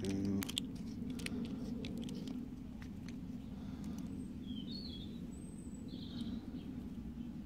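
A few light metallic clicks in the first couple of seconds as a steel hose clamp and screwdriver are handled, then a few short bird chirps around the middle, over a steady low background hum.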